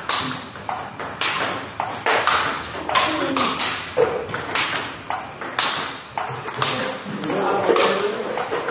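Table tennis balls clicking sharply and rapidly, about two to three a second. The sound is bounces on the table and forehand topspin hits off a short-pimpled rubber bat during a multiball feeding drill.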